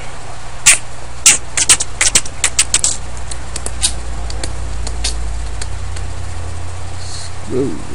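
A dozen or so sharp, irregular clicks of someone working a computer, some in quick little runs, over a steady low hum.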